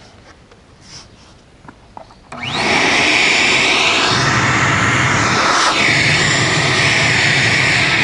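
Ridgid wet/dry shop vacuum switched on a little over two seconds in, its motor spinning up with a quick rising whine and then running loud and steady. Its pitch sags briefly about two-thirds of the way through.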